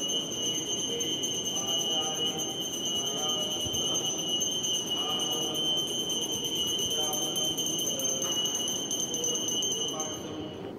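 Temple hand bell (ghanti) rung nonstop during the aarti: a steady, high, shimmering ringing that cuts off near the end.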